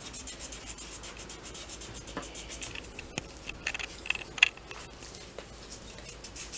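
Felt-tip markers scratching quickly back and forth on paper as two children colour in, in rapid repeated strokes, with a single sharp tap about four and a half seconds in.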